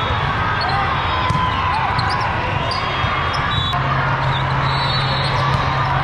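Volleyball hall during a rally: sneakers squeak in short chirps on the sport court and the ball is struck a few times, over a steady wash of many voices echoing through the large hall. A low steady hum comes in about halfway through.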